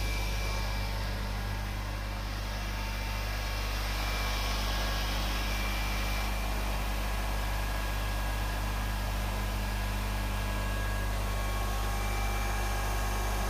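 Motorcycle brake-shoe OD grinding machine running unloaded, its motor and grinding wheel giving a steady hum. It runs smoothly enough that a screw stands upright on its vise table.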